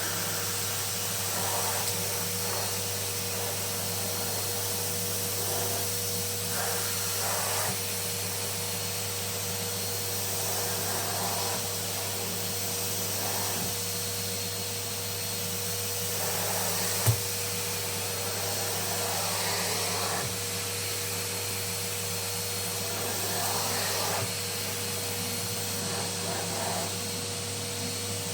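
Numatic cylinder vacuum cleaner running steadily, its floor tool swept back and forth so the suction noise swells every few seconds. One sharp click a little past the middle.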